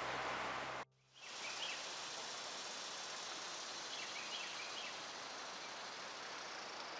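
Steady rushing of river water, cut off suddenly about a second in, followed by faint woodland ambience with a steady hiss and a few short bird chirps.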